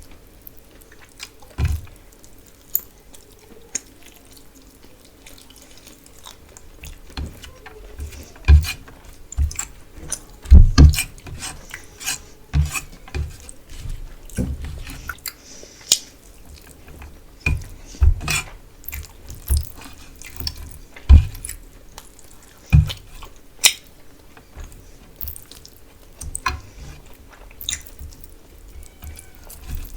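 Close-miked eating sounds: wet chewing, smacking and squelching of spicy fish curry with rice. Irregular sharp clicks and soft thumps come every second or so.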